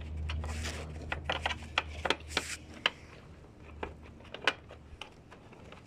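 Irregular small clicks and scrapes of a hand working a mounting screw into place in a tight spot under a car's front end, with a knit sleeve rubbing against the microphone.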